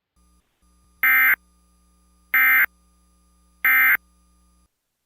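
Emergency Alert System end-of-message code: three short, identical buzzy bursts of digital SAME data about a second apart, the signal that closes an EAS alert.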